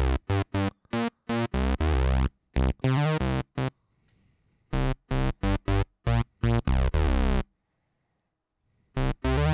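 Synth bass line of short staccato notes, several a second, from three oscillators, two of them detuned against each other and one an octave below. The line stops briefly about four seconds in, plays again, then stops for about a second and a half before starting again near the end.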